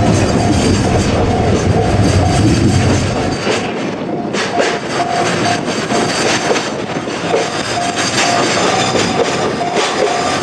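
JR Freight train rolling past at a level crossing, its wheels clacking over the rail joints with a heavy rumble that thins out about three seconds in. A level-crossing warning bell dings at a steady, even beat over it.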